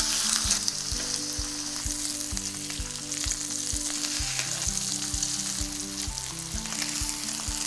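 Seasoned chicken breasts sizzling steadily as they fry in hot oil in an enamelled cast-iron skillet, occasionally moved with metal tongs.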